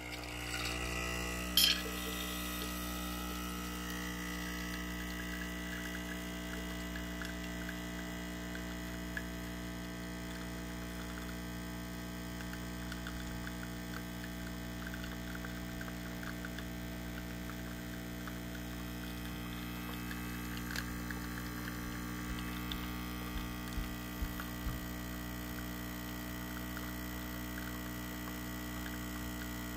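illy Y3.2 iperEspresso capsule coffee machine brewing: its pump runs with a steady hum while coffee pours into a glass mug. A sharp click sounds about two seconds in, and a few light ticks come near the end.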